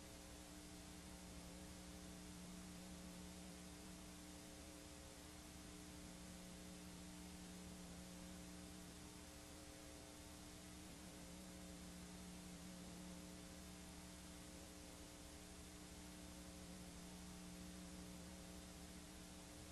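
Faint steady electrical hum with several constant tones over a soft hiss, from a blank stretch of videotape playing back after the recording ends.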